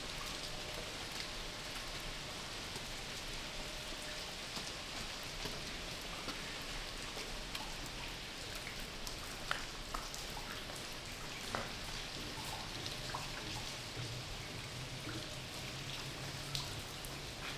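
Water dripping and spattering down steadily, like rain, with scattered single drops standing out now and then.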